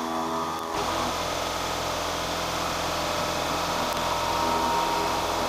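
CNC-converted Sieg X2 mini mill cutting aluminium with a 1/4 inch flat end mill, roughing out a centre hole, with steady spindle and cutting noise. Under a second in, the sound changes abruptly to a louder, fuller cutting noise that then holds steady.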